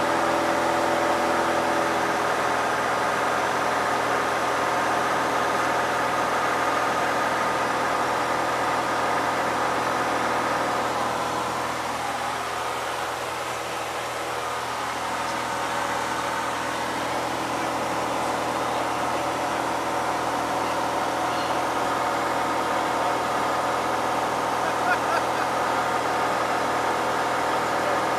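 Cessna light aircraft's piston engine and propeller running steadily, heard inside the cabin, easing slightly for a few seconds about halfway through.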